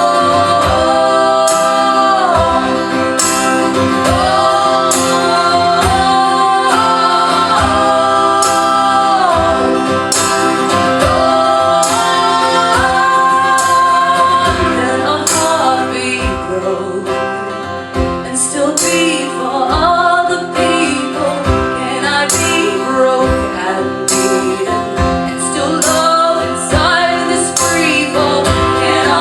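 Live folk song: voices singing in harmony over strummed acoustic guitar, with long held notes that slide between pitches.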